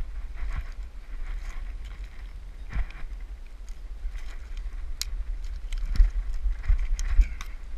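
Rustling and scattered sharp knocks and snaps from climbing down through tree branches, over a low, uneven buffeting on the microphone. The sharpest knocks come in the second half.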